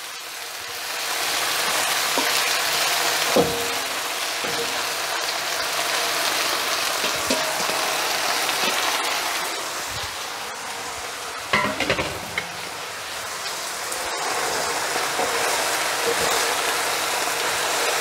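Mustard greens sizzling in hot oil with garlic and ground pork in a nonstick wok, a steady hiss that swells about a second in. A few short knocks of utensils against the pan come through, twice.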